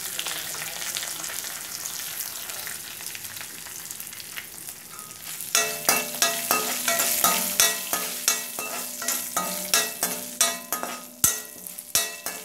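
Hot oil sizzling with a tempering of dal, dried red chillies and curry leaves in a metal kadai. About halfway through, a metal spatula starts stirring, scraping and clinking against the pan about twice a second, each stroke ringing.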